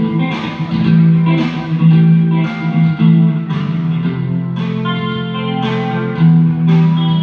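A band playing a song during a sound check: guitar chords strummed about twice a second over held bass notes.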